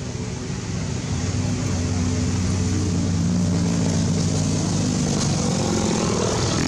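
A motor engine droning steadily, growing louder about a second and a half in.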